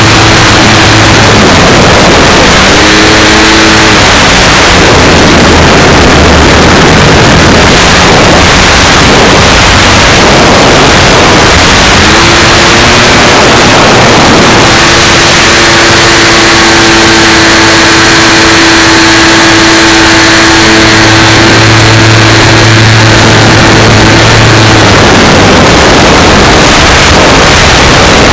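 A 55cc gasoline engine on a large radio-control aerobatic plane running in flight, heard from a camera on the wing: loud and overdriven, with wind rush, its pitch shifting up and down with the throttle several times.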